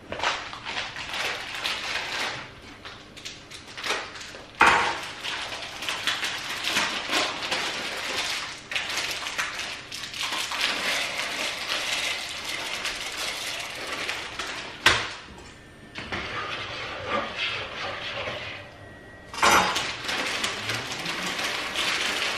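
Dry macaroni pasta poured from a bag into a steel pan, rattling in spurts, with three sharp knocks along the way.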